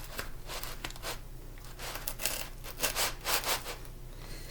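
A big kitchen knife sawing back and forth through a crunchy baked crescent-roll crust, in a series of short scraping strokes that come thicker about halfway through.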